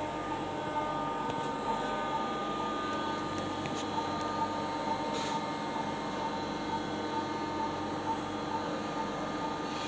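Hospital medical equipment running: a steady machine hum with a short, soft beep repeating about every 0.6 seconds.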